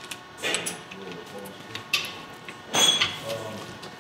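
Scattered metallic clinks and knocks from a long torque wrench and socket being worked on the steel bearing cap bolts of a differential third member. The loudest, a short ringing clink, comes a little under three seconds in.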